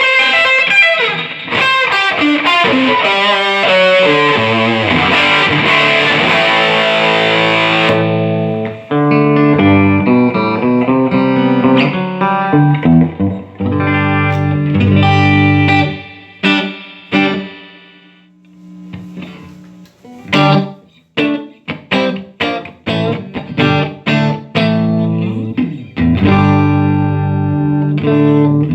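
Electric guitar played through a Fender Hot Rod Deville 2x12 tube amp, freshly retubed with new 6L6GC power tubes and 12AX7s. About eight seconds of fast, dense, bright playing give way to held chords, then short choppy chords, and held chords again near the end.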